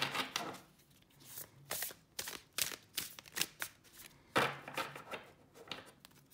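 A deck of matte-laminated 350 gsm oracle cards being shuffled by hand: a run of quick, uneven slaps and riffles of card edges.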